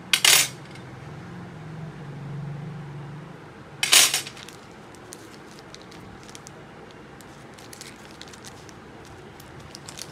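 A black metal mounting bracket clatters down onto a glass tabletop twice, once at the start and again about four seconds in. Faint crinkling and small clicks follow as a small plastic bag of parts is handled.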